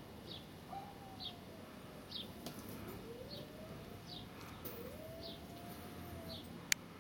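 Outdoor background: a bird gives a short high chirp about once a second. Under it a faint long tone slides slowly up and down in pitch, like a distant siren, and there is one sharp click near the end.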